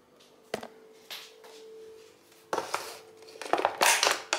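A clear plastic food container being handled and set down: a click about half a second in, then crackling and rustling of the plastic that gets louder in the last second and a half. A faint steady hum runs underneath.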